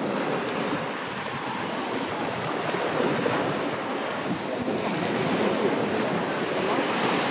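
Small surf waves washing onto a sandy beach, a steady rush of water that swells a little in the second half, with some wind on the microphone.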